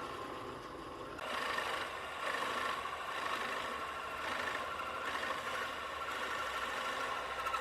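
A woodworking power machine running steadily, with a rougher cutting noise that swells about once a second from about a second in, as the tool works the wood.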